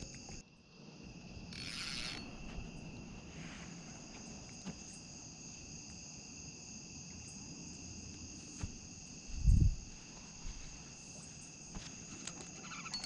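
Steady chorus of night insects, several high trills held without a break. A brief hiss about two seconds in, and a single dull low thump about nine and a half seconds in.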